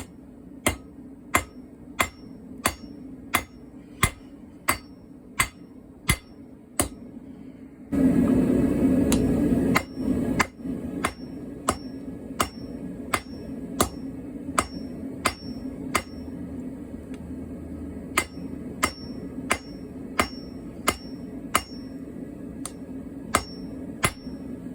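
Hand hammer striking steel on an anvil in a steady rhythm, about one and a half blows a second, each blow ringing. About a third of the way in a steady rushing noise starts, loud at first and then lower, running on under the blows, which pause briefly past the middle.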